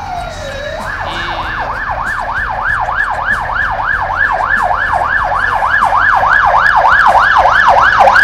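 Police van siren: one long falling tone that winds down, then a switch to a fast yelp of nearly four rising-and-falling sweeps a second that grows louder.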